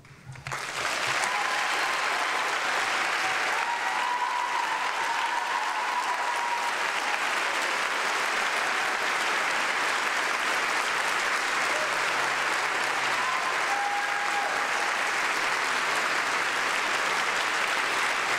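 Large audience applauding, rising quickly within the first second and then holding steady.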